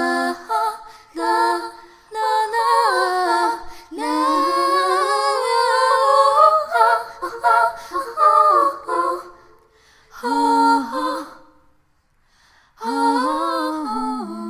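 Unaccompanied female singing without words: a slow melody in several phrases with short pauses between them, the longest phrase held from about four to nine seconds in, and a last phrase near the end.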